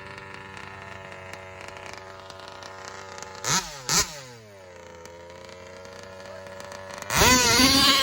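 Large-scale RC car's two-stroke gas engine idling steadily, blipped twice in quick succession about three and a half seconds in, then revved hard near the end.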